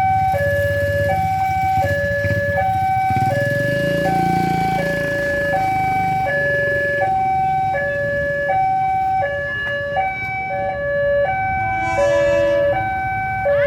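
Railway level-crossing warning alarm: an electronic two-tone signal alternating steadily between a high and a low note, each about half a second long. It is the warning that a train is approaching.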